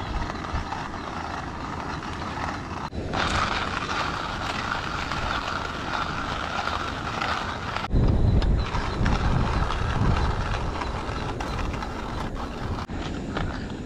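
Coffee beans being ground in a small coffee grinder, a steady grinding for several seconds, then a heavy low rumble of wind on the microphone from about eight seconds in.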